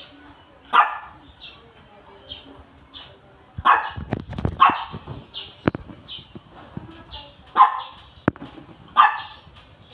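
Shih Tzu barking: about five sharp barks spaced unevenly, with a few dull low thumps in between.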